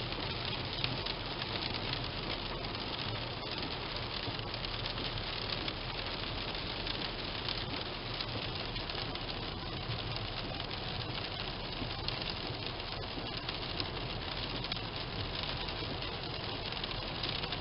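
Rain pattering steadily on a moving car, over a constant hiss of tyres on the wet road and a low steady hum from the car.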